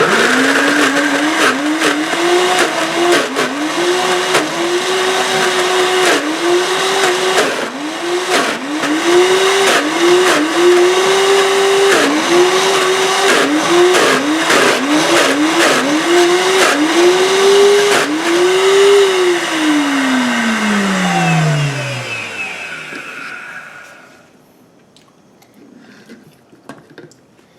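Cosori Pro high-speed blender motor running on thick chickpea hummus, its pitch repeatedly sagging and recovering about once a second as the tamper pushes the paste into the blades. About 19 seconds in it is switched off and winds down in a falling whine.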